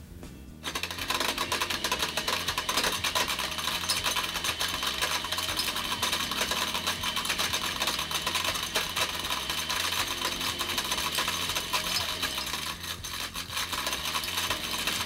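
A countertop blender starts about a second in and runs steadily with a pair of eyeglasses inside its glass jar. The glasses rattle and clatter against the jar as the blades smash them and break the lenses into shards.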